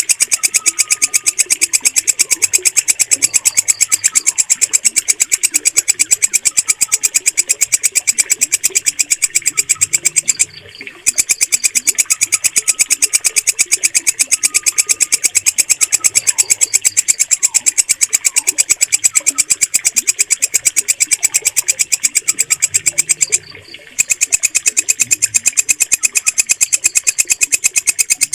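Walang kecek katydid stridulating: a loud, shrill, even train of rapid clicks that breaks off briefly twice. Faint bird chirps sound underneath.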